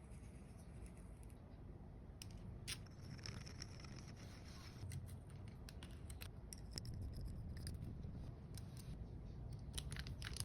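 Baitcasting reel clicking irregularly, with two brief high whirrs, one about three seconds in and one near the middle.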